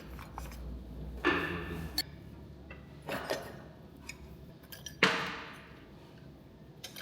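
Metal tools and engine parts clinking and knocking against each other, three sharp strikes. The loudest, about five seconds in, rings on briefly.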